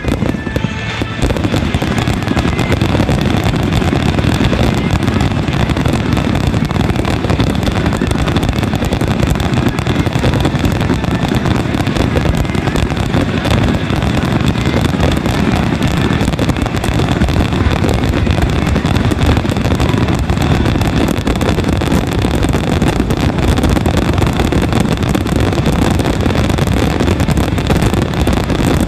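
A continuous barrage of aerial firework shells bursting in quick succession, the booms and crackle running into one another without a break: a wide starmine finale, with music playing underneath.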